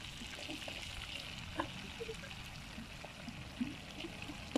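Fish frying in a pan of oil: a faint, steady sizzle with a few small pops.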